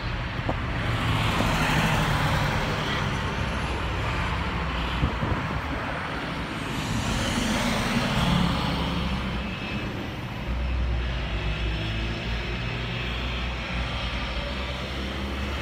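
Navistar VT365 6.0 L V8 turbo-diesel of an International IC CE200 school bus driving along the road, its engine noise swelling and easing, mixed with other passing road traffic.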